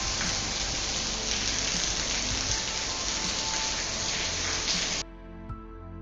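Steady hiss with soft background music faintly beneath it; the hiss cuts off suddenly about five seconds in, leaving only calm, sustained music.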